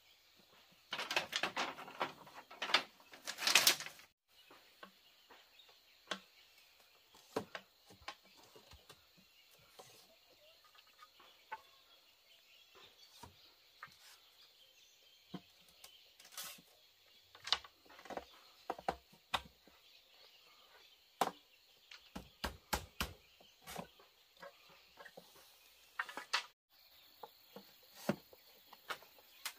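Irregular knocks, taps and clicks from bamboo being worked by hand. There is a dense burst of rapid strikes near the start and a quick run of heavier strikes about two-thirds through.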